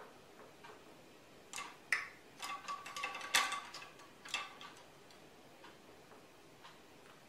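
A clock ticking faintly, about once a second. In the middle come a few seconds of louder clinks and clatter, with a brief ring, as paintbrushes are put down and picked up.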